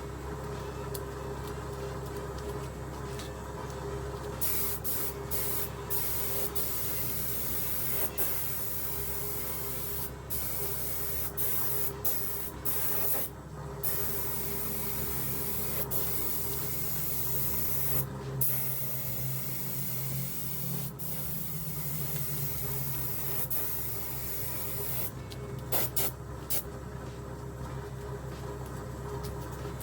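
Spray gun spraying high-build primer in a steady hiss that starts about four seconds in. It breaks off briefly several times as the trigger is released between passes.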